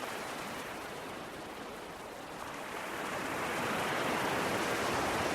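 Sea waves breaking and washing on a shore in a steady rush, easing slightly about two seconds in and then swelling louder as the next wave comes in.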